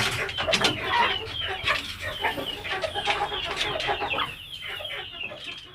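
Chickens clucking and calling, many short overlapping calls one after another, growing fainter near the end.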